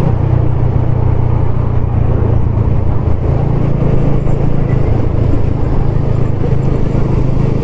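Motorcycles riding along a road: a steady low engine hum mixed with wind and road noise, without a break or change.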